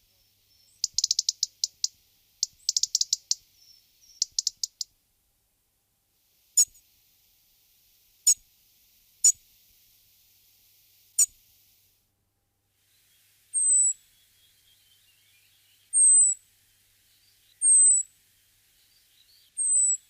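European robin calling: quick rattling bursts of sharp ticks for about five seconds, then four single ticks a second or two apart, then four thin, high, drawn-out notes that each fall slightly in pitch, about two seconds apart. A faint twittering runs underneath the high notes.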